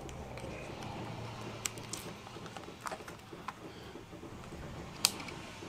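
Handling noise as a camera is fitted onto a quick-release mount: scattered small clicks and taps, with one sharper click about five seconds in.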